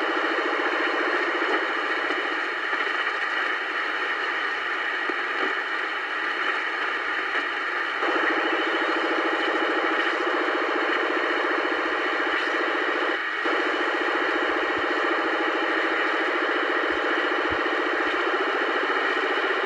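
Strange buzzing interference picked up on the 27 MHz citizens band and heard through a CB transceiver's speaker: a steady, rapidly pulsing buzz held within the radio's narrow audio band, of unknown origin, which the uploader wonders is jamming. Its tone shifts about eight seconds in, with a brief break a few seconds later.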